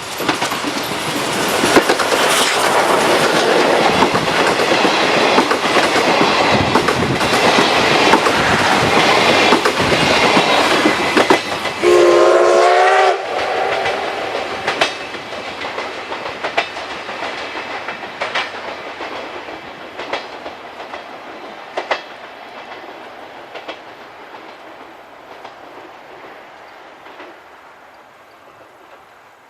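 A C57 steam locomotive and its train passing close by, with a loud rush of running noise and the clickety-clack of wheels over rail joints. About twelve seconds in there is one short whistle blast. Then the clatter fades steadily as the train draws away.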